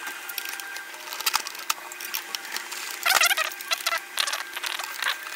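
Small plastic clicks and rattles from a Nerf Rival Kronos blaster's shell being handled and screwed back together with a Phillips screwdriver, with a short burst of clattering about three seconds in.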